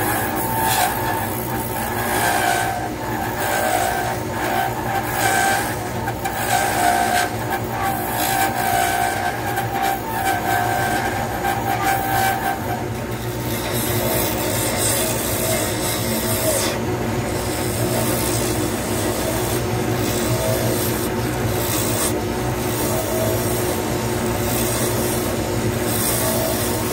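Lathe running with a hand-held turning tool cutting a spinning resin pen blank: a steady motor hum under a continuous scraping cut. About thirteen seconds in, a high whining tone drops out and the cutting sound changes.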